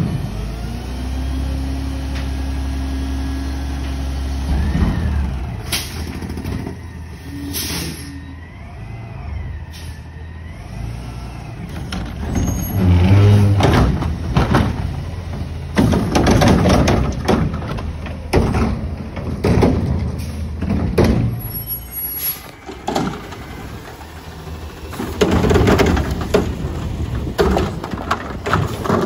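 Front-loading garbage truck with a front-mounted cart carrier, its diesel engine running steadily, then a hiss of air brakes and repeated loud noisy surges and bangs as the arm picks up and dumps a wheeled cart.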